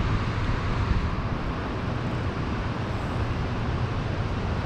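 Steady rushing noise of turbulent water released by the dam's running turbine, with a low steady hum underneath.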